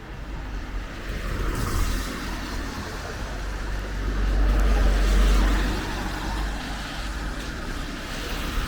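Road traffic passing on a wet road: a steady tyre hiss and engine rumble that swells to its loudest about halfway through, then eases.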